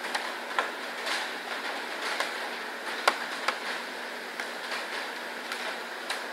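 Steady, even hiss of room noise, with irregular sharp clicks and ticks scattered through it; the loudest click comes a little after three seconds in.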